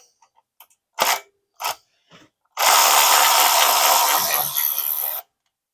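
Two short knocks, then a power tool runs steadily for about two and a half seconds and cuts off sharply.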